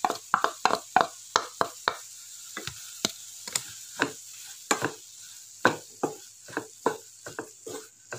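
Wooden spatula scraping a ground coconut mixture off a ceramic plate, then stirring it into cooked jackfruit pieces in a nonstick pan. It comes as short scraping and tapping strokes: quick in the first two seconds, sparse in the middle, then about two a second near the end.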